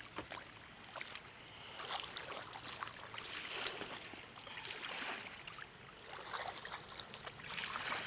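Kayak paddle strokes in river water: a swishing and splashing that swells and fades every second or so, over the wash of the flowing river.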